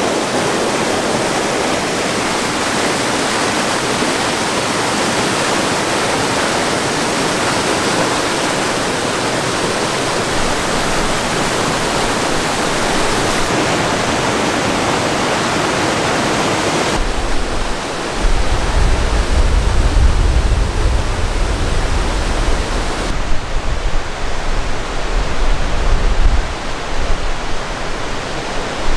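Rushing whitewater of a mountain creek. About two-thirds of the way through the water grows fainter and a strong, uneven low rumble comes and goes over it.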